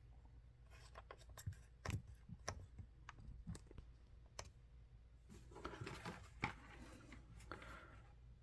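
Faint handling sounds: a series of sharp clicks and taps, then a stretch of rustling with one louder click in the middle.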